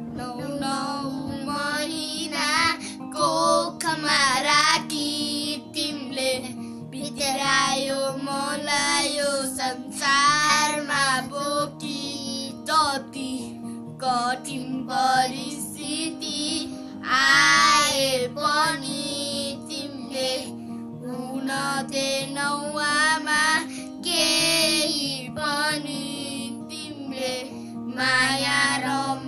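Boys singing a Nepali song in phrases over a steady instrumental accompaniment.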